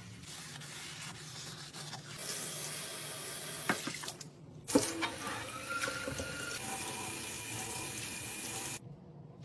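Water running, as from a tap into a sink, with a couple of sharp knocks around the middle; it breaks off briefly and later cuts off abruptly near the end.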